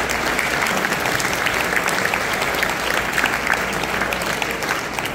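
Audience applauding: a roomful of seated guests clapping steadily.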